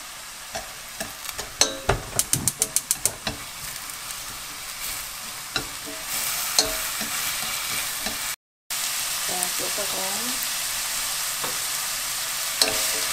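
Bellflower root sizzling in a stainless frying pan as it is stir-fried with wooden chopsticks. The chopsticks click against the pan in a quick run of taps about two seconds in, and the sizzle grows louder about halfway through.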